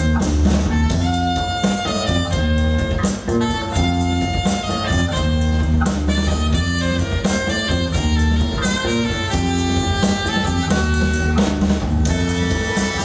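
A band playing live: saxophone, electric bass and drum kit, with held melody notes over a steady bass line and drums.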